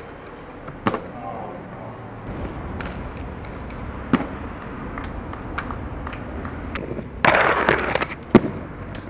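Skateboard wheels rolling, with sharp board clacks about one second, four seconds and eight and a half seconds in, and a loud scrape just before the last clack.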